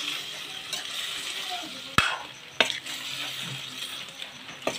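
Meat sizzling as it fries in a metal kadai while a metal ladle stirs it. Sharp clinks of the ladle against the pan come several times, the loudest about two seconds in.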